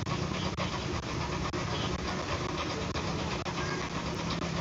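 A steady low mechanical hum, like a motor or engine running at idle, with faint ticks about twice a second.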